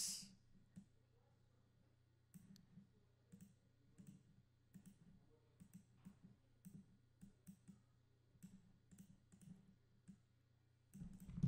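Faint, irregular computer mouse clicks over a low steady hum, as a Blender color ramp and color picker are adjusted.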